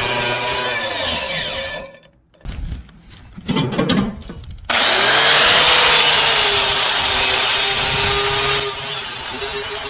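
Angle grinder scouring rust from the inside of a cast iron Dutch oven. It runs down and cuts out about two seconds in, followed by a few seconds of low knocks. Just before halfway it is back at full speed grinding against the iron, easing slightly near the end.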